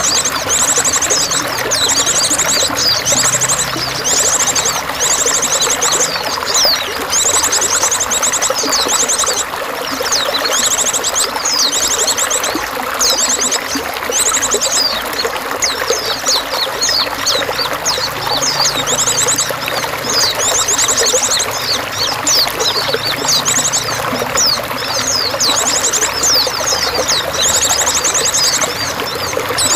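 Steady trickling, pouring water with small birds singing over it: short rapid high trills repeated about once a second, mixed with quick high chirps.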